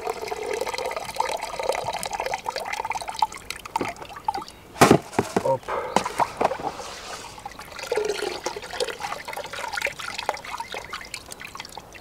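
Water draining out of soaked rapeseed bait through a sieve into a bait bucket, trickling with a ringing note that rises in pitch over the first few seconds. A sharp knock about five seconds in, then scattered clicks and taps as the sieve and seed are handled.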